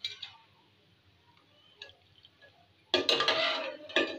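Steel spoon clinking and scraping against the sides of a steel pot while stirring milk thickened with custard: a brief clink at the start, a few faint ticks, then a longer spell of scraping about three seconds in and a sharp clink near the end.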